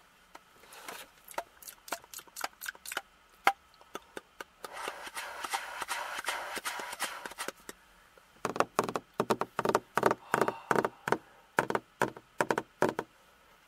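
Improvised ASMR sounds made close to the microphone with mouth and hands. First comes a scatter of sharp clicks and taps, then about three seconds of breathy hissing midway, then a quick run of clicks and taps near the end.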